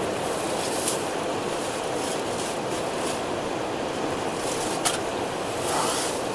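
Steady rush of river water, with a few brief sharp sounds: one about a second in, one near five seconds, and a softer one near six seconds.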